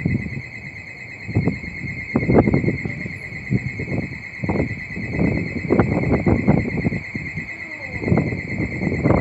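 Wind buffeting the microphone in irregular gusts, with a steady high-pitched whine running under it throughout.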